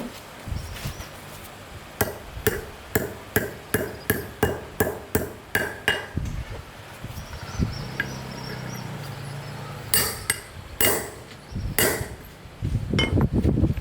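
Hammer blows during motorbike repair: a quick even run of about a dozen strikes at roughly three a second, then a few more after a short pause.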